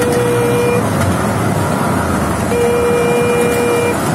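Mini tourist train riding its track with steady running noise, and its horn giving two long, even toots: the first ends about a second in, the second sounds for about a second and a half starting a little past halfway.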